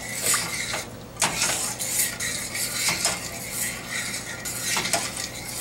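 A spoon stirring thick tomato-based barbecue sauce in a stainless steel pot, scraping and knocking against the pot now and then, over a steady hiss from the simmering sauce.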